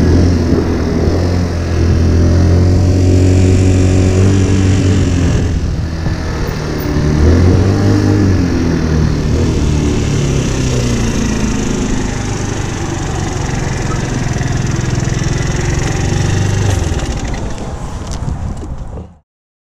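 AJS Fire Fox 50cc moped engine running at low speed, its note rising and falling with the throttle as the moped is ridden slowly and brought to a stop. The sound cuts off suddenly near the end.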